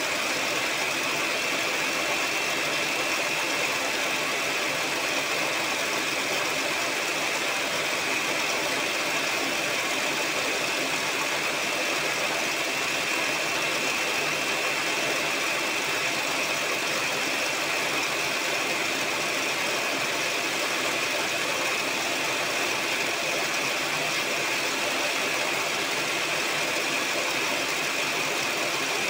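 Electric mixer running steadily at one speed, with a constant high motor whine, its beaters whipping eggs, sugar and SP emulsifier until the batter thickens.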